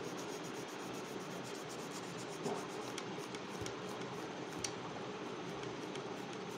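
Graphite pencil scratching on paper in quick back-and-forth shading strokes, laying down a dark tone, over steady background noise.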